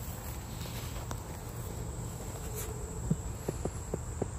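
Steady high-pitched insect drone over a low background hum, with a quick run of faint short ticks about three seconds in.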